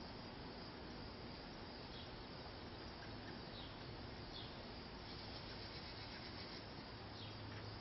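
Faint crickets chirping in a steady outdoor background hiss, with a few brief high chirps now and then.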